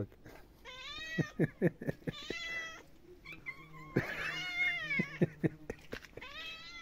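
Domestic cats meowing for food while waiting to be fed: about four drawn-out meows, the loudest about four seconds in.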